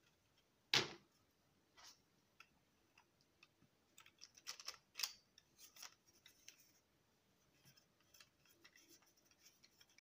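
Clicks and taps of 3D-printed PLA paddle-wheel parts being handled and pushed together: one sharp click just under a second in, then a run of quicker, quieter plastic clicks around the middle and faint ticks after.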